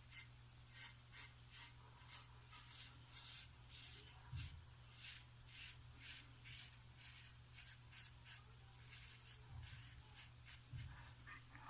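Gillette Aristocrat safety razor scraping through two days' stubble in faint, short strokes, about two or three a second.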